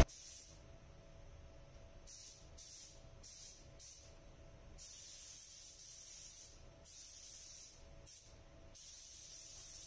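Compressed-air paint spray gun hissing as the trigger is pulled, laying silver waterborne paint: four short bursts about half a second apart, then longer passes from about halfway through. Faint.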